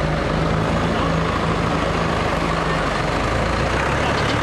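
Diesel engines idling: a steady low hum from the pickup truck and farm tractor, whose pitch shifts slightly near the end.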